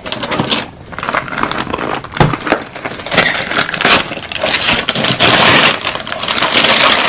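Wrapping paper being torn and crumpled off a gift box: a run of crackling rips, with longer tearing stretches in the second half.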